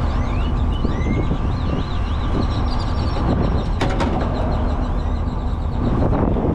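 A vehicle engine running steadily with a low rumble, with birds chirping over it and a sharp click about four seconds in.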